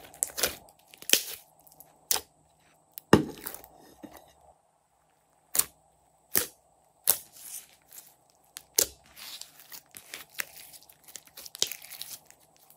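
Hands squeezing, pressing and stretching glossy slime, giving off irregular sharp sticky pops and clicks. A thicker run of crackling comes near the end as the slime is pulled out into strands.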